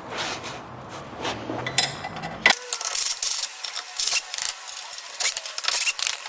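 Ratcheting socket wrench with a 9/16-inch socket clicking in short, irregular runs as bolts on a golf cart's front end are loosened.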